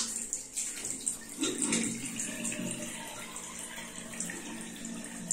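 Tap water running steadily from a cascade faucet and splashing into a flat-bottomed washbasin of glazed porcelain tile.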